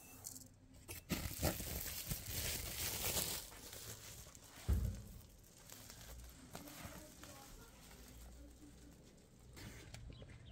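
Plastic rice sack crinkling and rustling as it is handled and folded, with one dull thump about halfway through.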